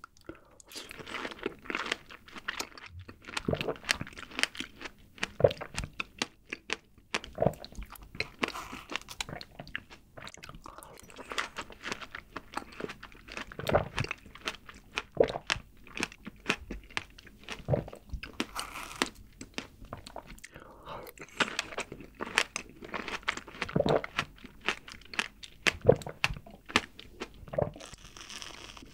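Close-miked eating sounds of fresh whole strawberries being bitten and chewed: wet mouth noises with many short sharp clicks, in bouts separated by brief pauses.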